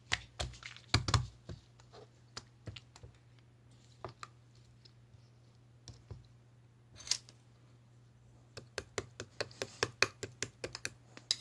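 Slime being squished and pressed by hand, giving irregular sharp clicks and small pops, with a quicker run of clicks near the end.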